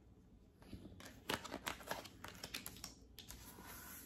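Tarot cards being handled: a faint, irregular run of small card clicks and taps for a couple of seconds, with a few more near the end.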